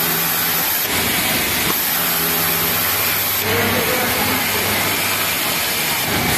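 A Pegasus MX four-thread industrial overlock sewing machine running in short bursts, starting and stopping a few times while it stitches a cotton jersey t-shirt side seam. It sits over the steady hum of a garment-factory sewing floor.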